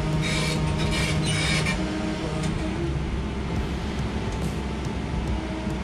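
Excavator's diesel engine running steadily as it lowers a heavy plastic septic tank on lifting straps, with a few short high squeaks in the first two seconds.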